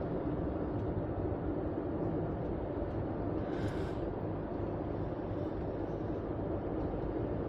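Steady road and engine noise of a car heard from inside the cabin while driving, with a brief hiss about halfway through.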